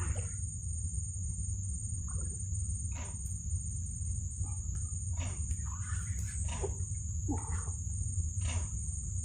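Outdoor natural ambience: a steady high insect drone over a low rumble, with a run of about seven separate animal calls that each fall steeply in pitch.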